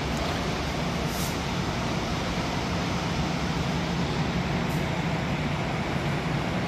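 Steady rushing noise with a low hum underneath, unchanging in level.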